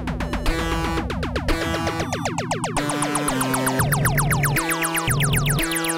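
Electronic background music: synthesizer notes over a repeating bass line, with a run of quick falling sweeps from about halfway through.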